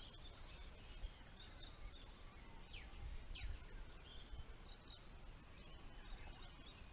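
Wild birds calling faintly: a few quick falling whistles and scattered chirps and trills, over a low rumble.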